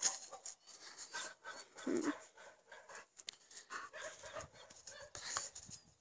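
Young German Shepherd dog panting and scrambling on dry grass as it lunges on its leash, with scattered short rustles and clicks and a brief low sound about two seconds in.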